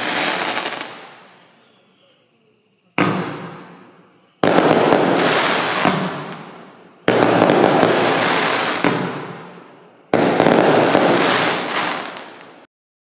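Compound firework barrage cake firing. A volley of bursts fades out, and after a short lull the cake fires four more sudden volleys a few seconds apart, each dense with noise and dying away over a couple of seconds. The sound cuts off abruptly near the end.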